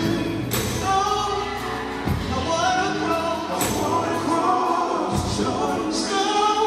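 Male gospel vocal group singing together into microphones, backed by a live band with drums that hit about every second and a half.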